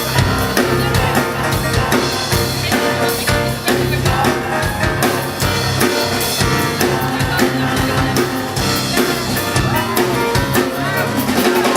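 Jazz combo playing an instrumental passage: piano with bass and drum kit.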